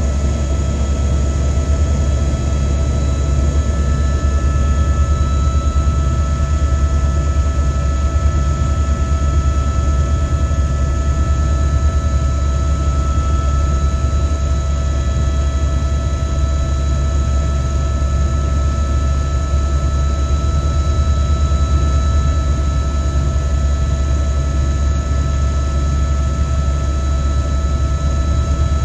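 Helicopter running steadily: a loud, low rotor drone with steady turbine whine tones over it.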